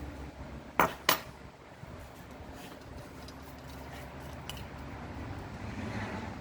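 Two sharp clinks a quarter second apart, about a second in, then a few faint light ticks over a steady low background hum.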